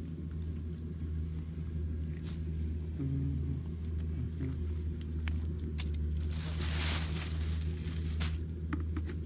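Steady low rumble, with scattered sharp crackles and snaps near a small wood fire and a short rustling hiss about two-thirds of the way through.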